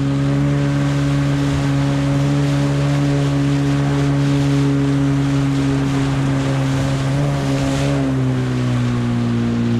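Yamaha 30 two-stroke outboard with a jet attachment running steadily under way, with water and wind rushing around the boat; about eight seconds in the engine note drops a little as the throttle eases.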